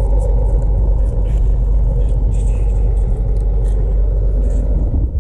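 Semi-truck's diesel engine idling with a steady low rumble.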